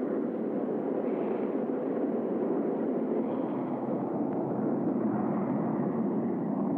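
Steady rushing jet noise of an F-111 in flight, its two TF30 turbofans, picked up on the crew's cockpit recording during a terrain-following descent. The noise stays even throughout.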